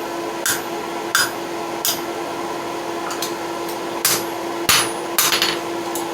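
Hand hammer striking hot steel on an anvil, putting the first bend into the end of a bar for a hook. About eight sharp strikes: three in the first two seconds, a pause, then a quicker run of five near the end, over a steady hum.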